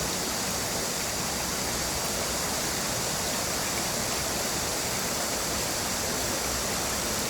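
Mountain valley stream flowing, a steady, even rush of water with no breaks.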